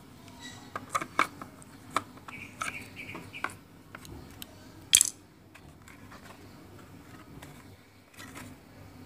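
Plastic casing of a ZTE wifi router being pressed and snapped shut by hand: a run of clicks and knocks in the first few seconds, one loud sharp snap about five seconds in, then quieter handling.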